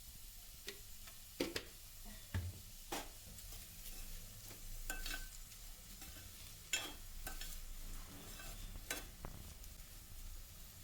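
Sliced onions frying in hot oil in a wide pan, giving a faint sizzle, while a utensil stirs them with scattered scrapes and taps against the pan.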